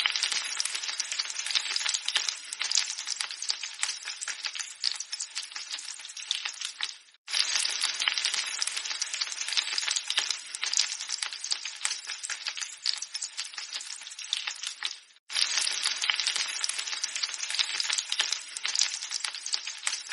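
Eggs frying in a pan: dense sizzling and crackling, with two very brief breaks about seven and fifteen seconds in.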